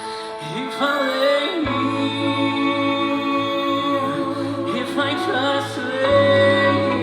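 Music: a singing voice over sustained held chords.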